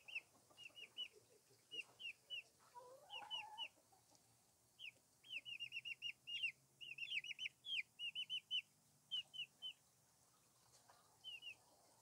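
Chickens in a coop: runs of short, high chirps that fall in pitch, several a second, with a lower rising call about three seconds in.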